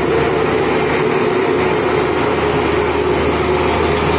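Diesel engine of a Dynapac tandem road roller running steadily as the roller rolls close by, compacting fresh asphalt.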